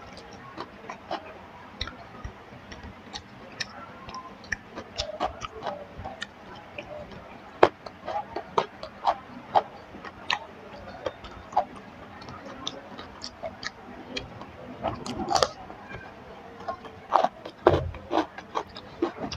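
Close-miked eating sounds: irregular wet clicks and smacks of chewing and mouth noises, a few louder ones about midway and near the end.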